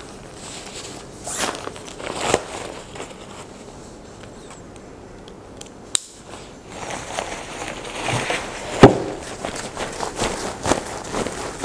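Handling noise from an ultralight nylon backpack loaded with two 5 kg weight plates: fabric rustling and strap and buckle handling as its top is closed and the pack is lifted. A single sharp click comes midway, and a louder thump follows a few seconds later.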